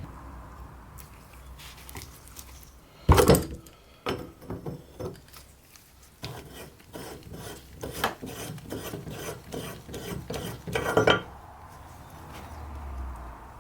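Hand-tool work on the metal parts of an old blowtorch: a sharp clack about three seconds in, then a run of irregular rasping scrapes and clicks, loudest near the end of the run.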